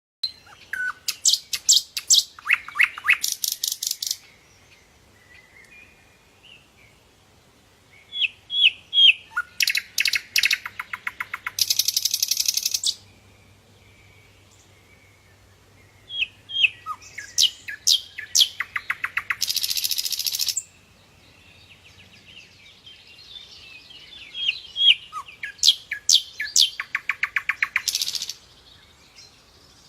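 A songbird singing the same loud song phrase four times, about every eight seconds. Each phrase starts with a few separate slurred notes, runs into fast trills and ends in a dense, buzzy trill.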